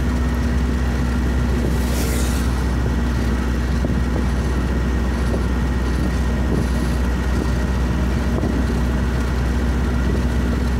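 Steady engine and road noise inside a moving vehicle's cabin: a continuous low drone with a steady hum over it. A brief rush of hiss comes about two seconds in.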